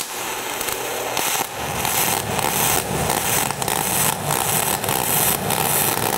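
MIG welding arc on carbon steel with pure argon shielding gas, 0.035 wire at 26.5 volts from an ESAB EM 235ic: a steady crackling hiss with irregular heavy popping. The arc is close to spray transfer but not yet there. It strikes abruptly at the start.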